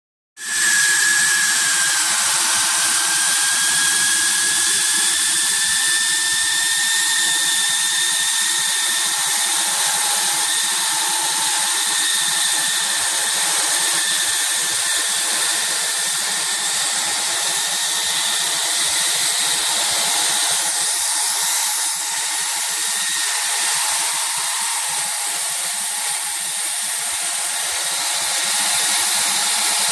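Hightex S700 hot-air tape welding machine running: a steady rush of blown air with a high, even whine from its blower, starting suddenly about half a second in.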